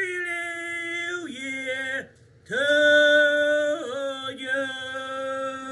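A man singing long, drawn-out held notes. The pitch steps down after about a second, the voice breaks off briefly at about two seconds, then it holds one long lower note.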